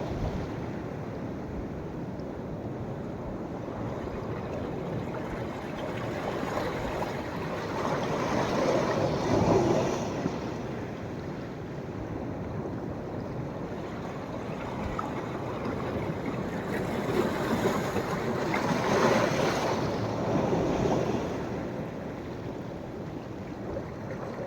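Sea waves breaking and washing up the beach over a steady surf hiss, with two louder swells, about nine seconds in and again around nineteen to twenty-one seconds.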